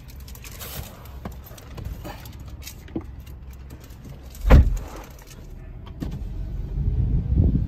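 Small clicks and rustles from a phone being handled inside a car, a single heavy thump about four and a half seconds in, then a low rumble that builds near the end.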